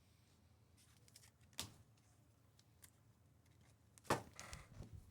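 Trading cards and packs being handled on a table: a sharp tap about one and a half seconds in, a faint click, then a louder tap followed by brief rustling near the end.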